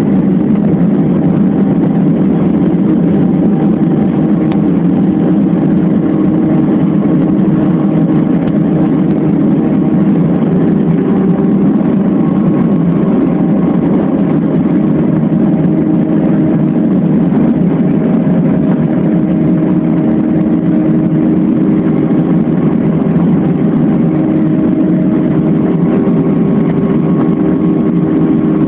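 Airliner's engines at takeoff power, heard from inside the cabin: a loud, steady roar through the takeoff roll and climb-out.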